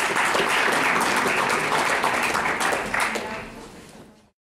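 Audience applauding, many hands clapping together. It dies down after about three seconds and cuts off just before the end.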